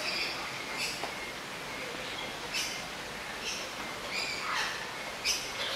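Birds chirping: short high chirps about once a second, with one longer call falling in pitch a little past the middle, over steady background noise.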